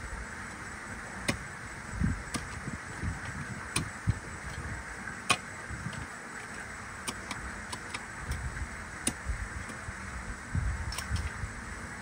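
Outdoor background: a steady hiss with uneven low rumbling, like wind buffeting the microphone, broken by sharp knocks or clicks every second or two.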